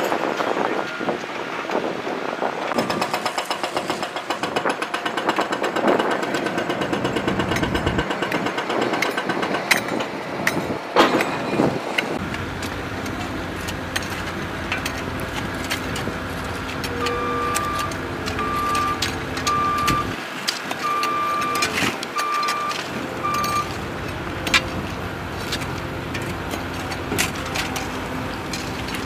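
A backhoe loader's diesel engine runs as it digs at a runway crater. Then shovels scrape and strike gravel and broken concrete, with sharp knocks throughout and six short, evenly spaced beeps about the middle.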